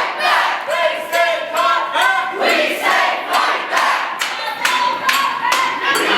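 A crowd of protesters shouting and chanting over repeated clapping and banging.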